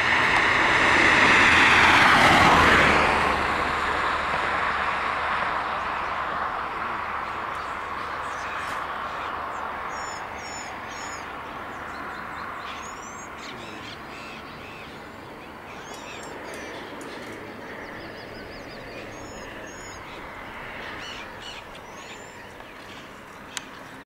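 A motor vehicle passes close, loudest about two seconds in, then fades slowly into the distance. Later, short high chirping bird calls come now and then over the fading hum.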